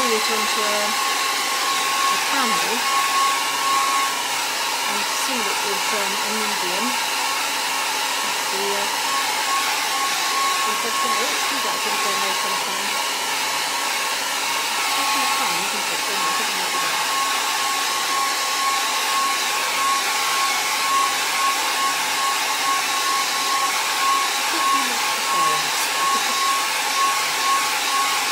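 Handheld hair dryer blowing steadily, with a steady whine over its rush of air, as it dries a wet watercolour painting.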